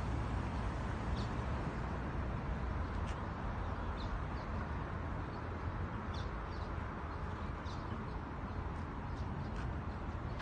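Steady hum of road traffic, with short high bird chirps scattered throughout.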